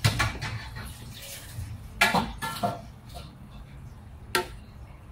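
Metal kitchen utensils knocking against a cooking pot: a few sharp clinks, one with a brief metallic ring about two seconds in, over a low steady hum.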